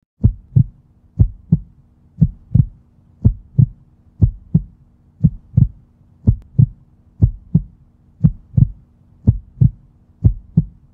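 Heartbeat sound effect: paired lub-dub thumps, about one pair a second, over a faint steady low hum.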